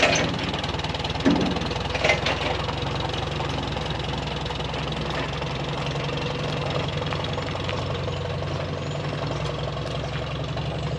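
A large farm engine idling steadily, with a few sharp knocks in the first two seconds.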